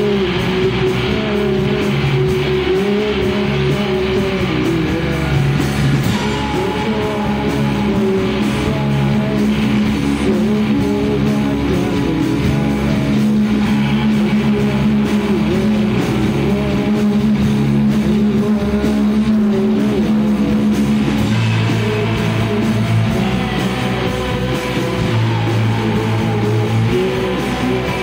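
Live indie rock band playing a song: electric guitars and keyboard over a changing low bass line.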